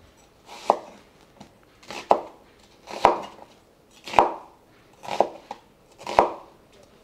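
Knife cutting an onion into eighths on a cutting board: six single cuts about a second apart, each ending in a sharp tap of the blade on the board.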